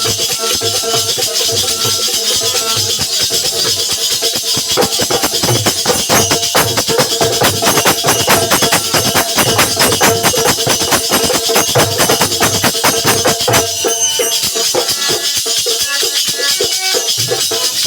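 Bundeli folk percussion ensemble playing a fast, driving rhythm: dholak and nagadiya drums with jhinka jingles and manjira cymbals keeping up a dense shaking, clashing pulse. The playing briefly thins out about 14 seconds in, then picks up again.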